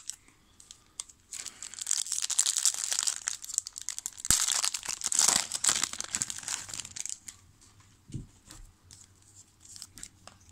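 Foil card-pack wrapper crinkling and tearing as it is peeled open by hand, most of it in a dense stretch from about a second and a half in to about seven seconds, then a few light rustles and clicks as the cards are handled.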